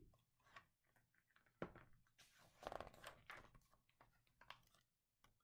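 Faint rustling and soft knocks of a hardcover picture book being handled and its page turned, a few scattered light taps with a brief rustle in the middle.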